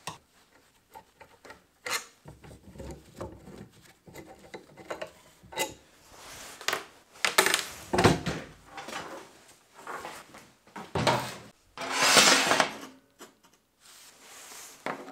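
Handling noises from a Scheppach portable metal-cutting bandsaw being worked on with a screwdriver and moved on a workbench: irregular clicks, knocks and scrapes of metal and plastic parts, with a longer scrape about twelve seconds in.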